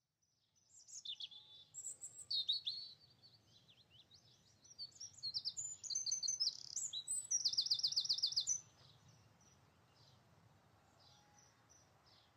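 Small songbird chirping and twittering in short high phrases, ending in a fast run of repeated notes before it stops. A faint low rumble lies underneath.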